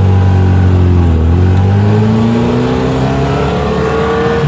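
1969 Triumph Spitfire's four-cylinder engine running under load, heard from inside the small open cabin. Its pitch dips briefly about a second in, then climbs steadily as the car accelerates.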